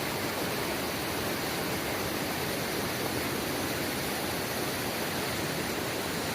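A mountain river in a gorge, its water rushing steadily.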